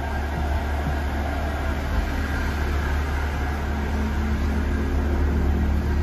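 PESA Link diesel multiple unit idling while stationary, a steady low hum heard inside the passenger saloon.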